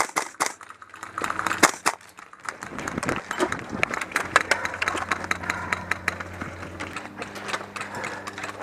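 Airsoft gunfire: a quick string of sharp shots right at the start, then a dense, rapid patter of shots from several guns through the middle, thinning out near the end.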